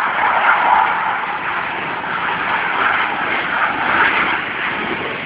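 Jet aircraft flying overhead: a loud, steady rushing roar that swells slightly about a second in and again near the end.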